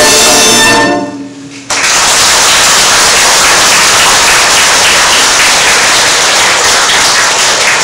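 A wind band's final chord rings out and fades away, then audience applause breaks out suddenly about two seconds in and carries on steadily.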